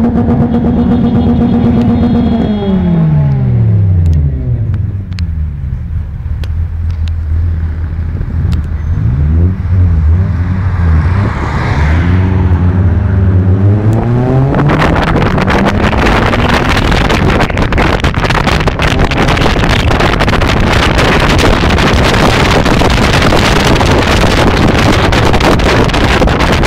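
Car engine heard from inside the cabin: its pitch falls a few seconds in, it idles low for about ten seconds, then its pitch rises as the car pulls away. From about halfway through, loud wind and road noise buffet the microphone.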